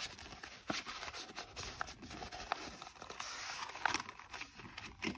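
Paper handling: light rustling with scattered small clicks and taps as paper bills and cash envelopes are sorted and moved.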